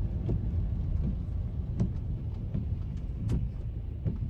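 Car driving in heavy rain, heard from inside: a steady low road and engine rumble with scattered sharp taps of rain striking the car.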